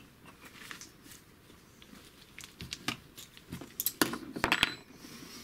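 Tools and small parts being handled off-camera: scattered small clicks and clinks, with a busier cluster of sharper clicks about four seconds in.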